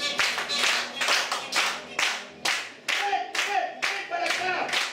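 Hand clapping in a steady rhythm, about three claps a second, with voices calling out over it in the second half.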